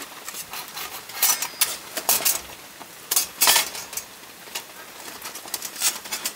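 Stainless-steel panels of a folding camp grill clinking and clacking as it is pulled open by hand: a series of irregular sharp metal clacks, the loudest in the first half.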